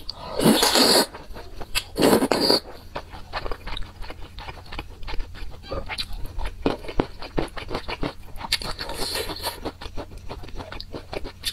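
Close-miked eating of wide flat noodles in a spicy sauce: two loud slurps as the noodles are sucked in during the first three seconds, then wet chewing with many small mouth clicks, and another softer slurp about nine seconds in.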